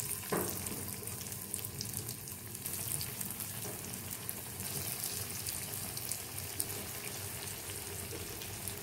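Breadcrumb-coated banana cutlets shallow-frying in hot oil in a pan: a steady sizzle with small scattered crackles.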